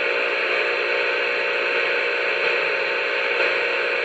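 Steady radio static hiss from a CB radio receiver's speaker, even and unbroken, with faint low tones beneath.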